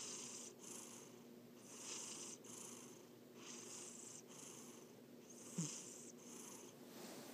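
A sleeping cat snoring softly, breathy hissing snores in and out at about one breath every two seconds. One short, louder low sound comes about five and a half seconds in.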